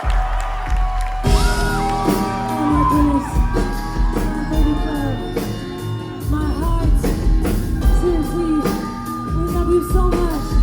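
A band playing a pop song live in a club, with a woman singing over a deep, steady beat. The band fills in about a second in.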